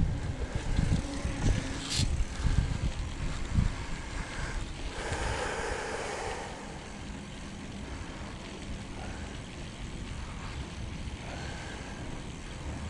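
Wind buffeting the microphone while riding a bike, gusty at first and then easing into a steady outdoor hiss. There is a sharp click about two seconds in and a brief rushing swell around five to six seconds.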